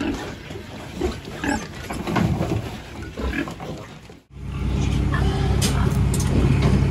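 Pigs grunting and squealing in a pen for about four seconds. After an abrupt cut, a steady low engine hum takes over.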